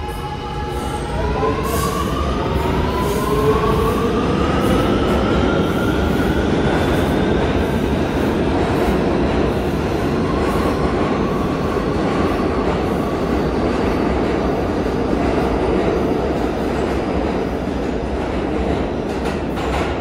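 New Kawasaki R211A subway train accelerating out of an underground station. Its propulsion whine climbs in pitch over the first several seconds, then the cars rumble and clatter past on the rails, with a few sharp clicks from the wheels, easing a little near the end as the last car leaves.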